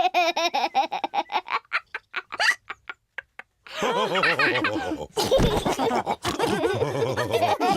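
Cartoon pig characters laughing. A run of quick laughs thins out, and after a short pause several voices laugh together, one of them deep.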